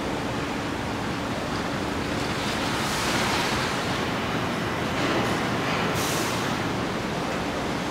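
Steady assembly-plant ambience: a continuous mix of machinery noise and hiss on the factory floor, with two swells of hissing about three and six seconds in.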